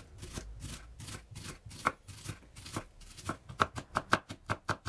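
Chef's knife slicing a red onion into rings on a wooden cutting board: a run of short cuts, each tapping the board, about two or three a second at first and speeding up to about five or six a second in the last second and a half.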